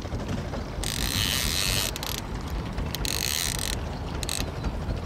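Multiplier fishing reel ratcheting in spurts of a second or so, with a pause between each, as a hooked fish is played on a bent trolling rod. A low steady rumble from the boat's outboard motor runs underneath.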